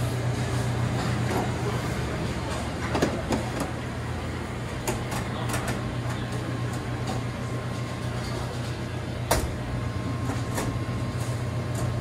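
Steady low machine hum with several sharp knocks and rattles as the wire shelves and plastic crates of a stainless-steel commercial refrigerator are handled, the loudest knock about nine seconds in.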